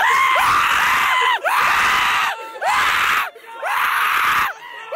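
Loud, heavily distorted screaming and shouting voices in bursts of about a second, with short breaks between them.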